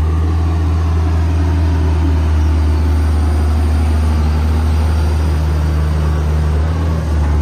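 Diesel engine of a Hitachi ZX200-5G hydraulic excavator idling with a steady low drone.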